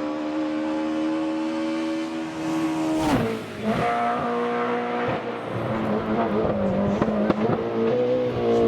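Rally car engine held at high revs, its note dropping sharply about three seconds in with a sudden crack. It then runs lower and unevenly, with a string of sharp cracks and another drop in pitch near the end.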